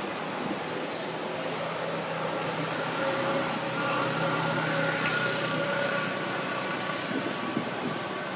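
A steady motor hum over even background noise, growing louder in the middle and easing off toward the end.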